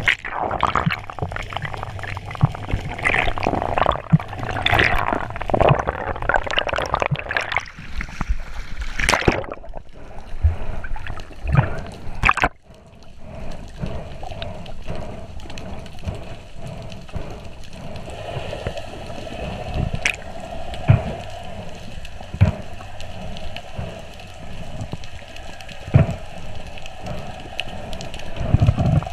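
Water heard underwater through a camera housing: a muffled gurgling and sloshing with scattered clicks and knocks, busiest in the first third, and a faint steady hum later on.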